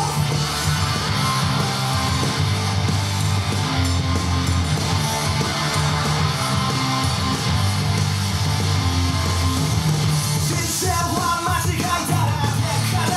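Loud rock entrance music for a wrestler, with driving bass, electric guitar and a singing voice that comes in strongly near the end.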